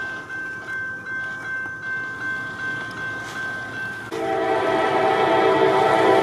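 Train sounds: a steady rhythmic pulse about three times a second under a held ringing tone, then about four seconds in a train horn starts, loud and held, as a chord of several notes.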